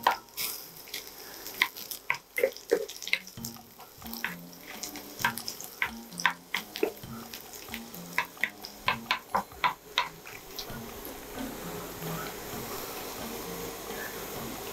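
Chopped garlic sizzling in hot oil in a nonstick pan, with a wooden spoon knocking and scraping against the pan as it stirs. The taps stop about ten seconds in, leaving a steady sizzle.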